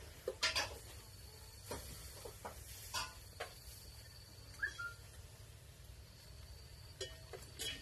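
Puppy giving one brief, high, rising squeak about halfway through, among a few soft scattered clicks.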